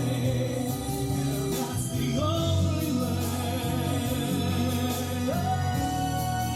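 Background music: a song with a singing voice holding long notes over steady instrumental backing.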